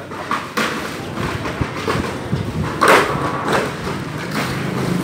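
Yellow plastic fish crates knocking and clattering as they are handled and stacked, with irregular thuds, the loudest about three seconds in. A steady engine hum comes up near the end.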